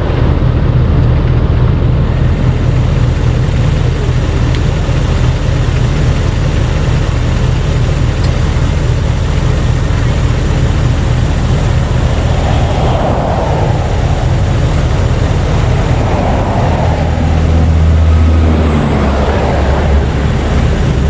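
Motor vehicle engine running steadily with road noise, with a few rushing swells about two-thirds of the way through and near the end.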